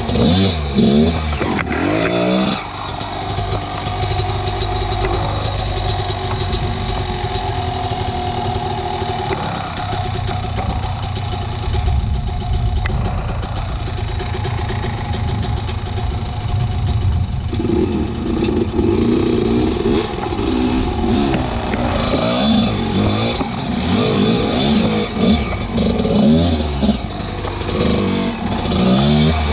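Enduro dirt bike engine running under throttle on a trail, revving up and down quickly at first, then running more steadily, then revving up and down repeatedly again in the second half.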